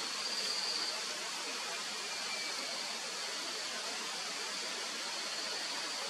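Steady tropical-forest ambience: an even hiss with a continuous high-pitched insect drone, slightly louder in the first second. No sound from the eagles stands out.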